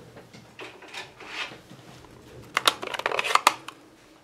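Plastic ink pad case being handled and opened: a soft scrape and rustle about a second in, then a quick cluster of plastic clicks and clacks between about two and a half and three and a half seconds in.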